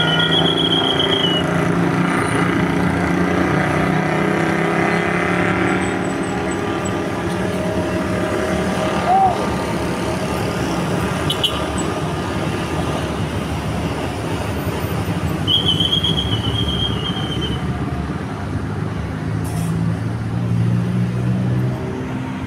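Bus engine running at the terminal. Two short high-pitched tones are heard, one near the start and one about two-thirds of the way through.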